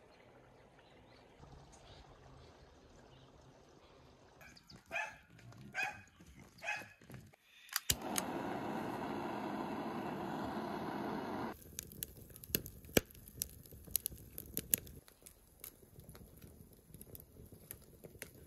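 A handheld gas torch clicks alight and hisses steadily for about three and a half seconds while lighting kindling in a metal bucket stove, then the kindling crackles and snaps sharply as it catches, the snaps thinning out near the end. Earlier, a dog barks three times.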